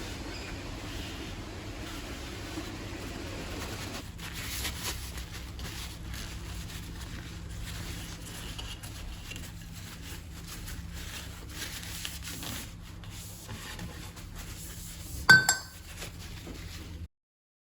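Quiet handling of metal parts over a low steady hum, with one sharp ringing metallic clink about fifteen seconds in; the sound cuts off abruptly shortly after.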